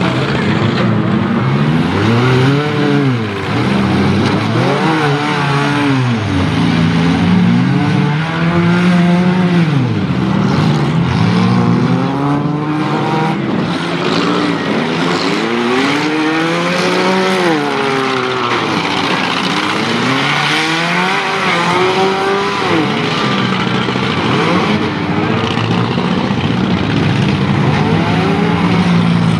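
Several small demolition-derby cars' engines revving hard, rising and falling over one another as the cars reverse and ram, over a steady drone of many engines.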